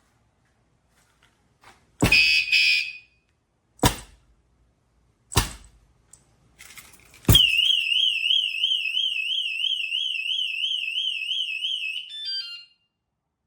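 WSDCAM screw-mounted vibration anti-theft alarm being set off by knocks. A first knock brings a short beeping chirp, and two more sharp knocks follow. A fourth knock sets off the siren: a loud, fast, high warble for about five seconds, ending in a short run of falling beeps.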